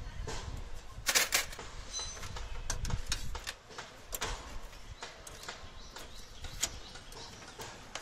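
Irregular metallic clicks and knocks from hand work inside a Maruti Alto's stripped door: a screwdriver and the door-lock rods tapping against the sheet-metal panel. The loudest is a short clatter about a second in.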